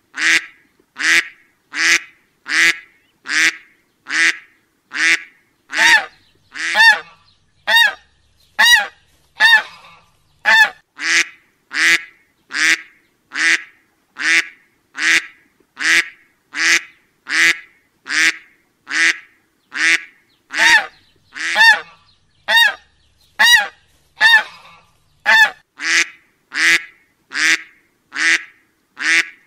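Duck quacking over and over, one short quack about every second at a steady, even pace.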